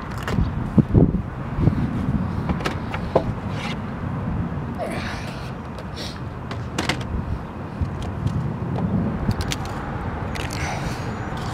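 A laptop being handled and set down on a wooden picnic table, making a few short knocks over a steady low outdoor rumble.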